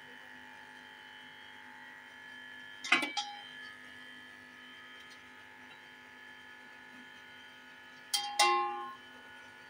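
A spatula knocking against a large aluminium cooking pot twice, with a short metallic ring, once about three seconds in and again near the end, over a steady background hum.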